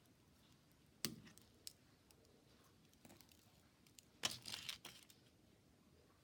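Mobile phone being crushed in a press: a sharp crack about a second in, a small click, then a short burst of crackling a little after four seconds in as the phone and its screen break.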